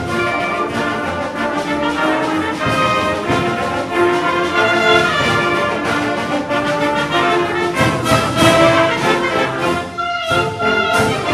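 Background music: a symphonic wind band playing, with brass prominent in held notes.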